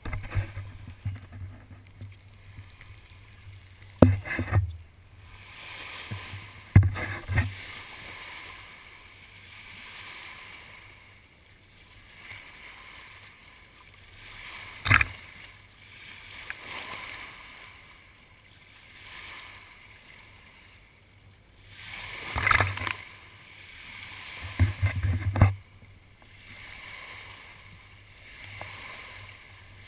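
Water rushing and splashing past a moving sailboat's hull, swelling and fading every few seconds, heard close to the surface. About five sharp knocks and bumps cut through it.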